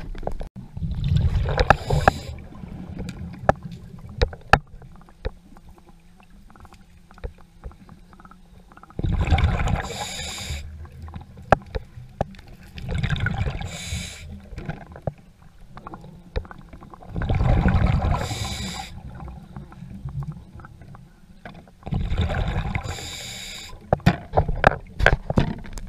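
Scuba diver breathing through a regulator underwater: rushing, bubbling bursts of exhaled air every few seconds, five in all. Faint scattered clicks come in between.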